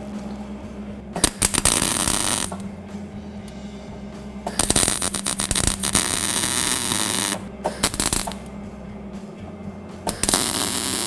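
A small 120-volt welder turned up near its highest setting, arc welding in about four bursts of one to three seconds with short pauses between them. It is welding a nut onto a broken, rusted bolt stub. A steady low hum runs underneath.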